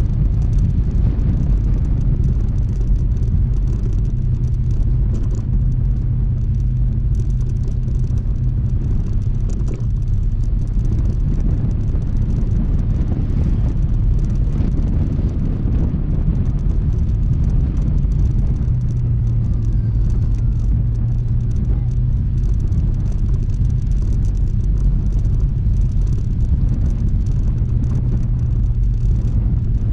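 Honda ADV160 scooter's single-cylinder engine running steadily under way. Its low note shifts a little a few times as the ride goes on.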